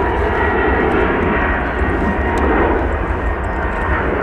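Jet airliner's engines running loud and steady: a deep rumble under a broad rush with a faint steady whine on top.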